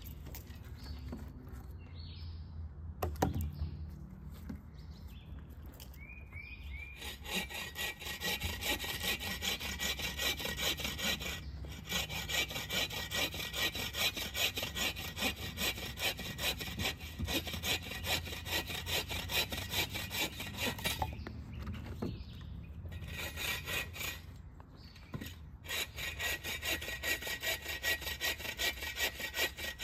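Agawa Boreal 24 folding bow saw cutting through a fallen branch with steady, even back-and-forth strokes that begin a few seconds in and pause briefly twice near the end. A single knock sounds about three seconds in, before the sawing starts.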